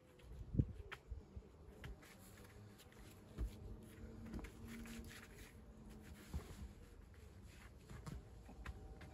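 Faint, scattered knocks and scrapes of stone-wall work, stones and tools being handled, with one louder thump just over half a second in.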